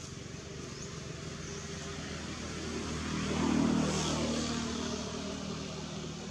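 A motor vehicle passing by, its engine hum swelling to a peak about three and a half seconds in and then fading.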